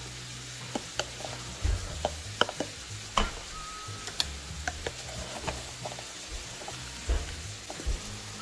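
Scattered light clicks and knocks of a clear plastic rice canister and measuring cup being handled, over a faint steady sizzle of ground beef frying in a pan.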